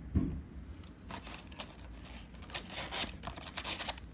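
Trading cards being handled: a run of short, irregular scrapes and clicks as the cards slide and flick against each other while being sorted through by hand, after a couple of soft low thumps at the start.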